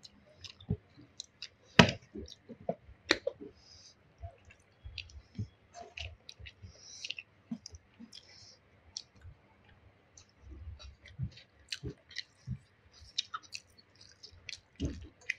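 Eating noises: chewing and mouth smacks with scattered, irregular clicks and small knocks. The sharpest knock comes about two seconds in.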